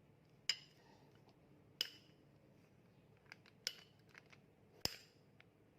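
Sharp metal clinks and taps of a hex socket and steel head bolts as the head bolts come out of a Denso 10P15C AC compressor, about five separate clinks with a short ring after each.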